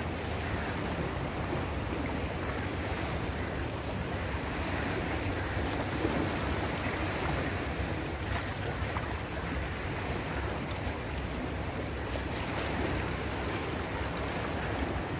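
Steady wash of small waves and shallow seawater at the shoreline, a constant noisy rush with no distinct events.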